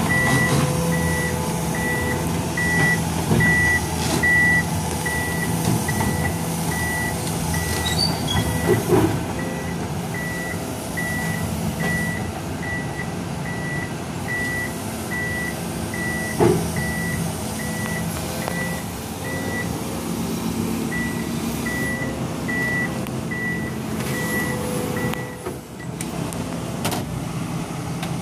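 Komatsu PC210 excavator's diesel engine running under load as it tracks onto a lowboy trailer, with its travel alarm beeping about one and a half times a second. The beeping pauses briefly and stops a few seconds before the end, and there are a couple of sharp clanks along the way.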